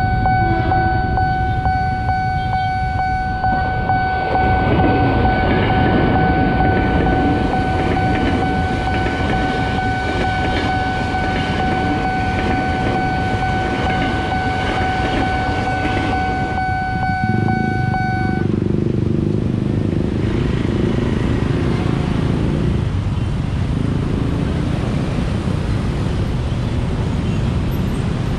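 Level-crossing warning alarm sounding a steady high tone while a JR 205-series KRL electric commuter train passes. The alarm cuts off about two-thirds of the way through, leaving the sound of motorcycles and cars moving across the crossing.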